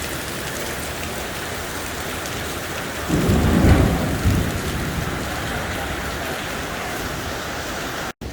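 Heavy rain pouring steadily. About three seconds in, a low rumble of thunder swells and dies away over a couple of seconds.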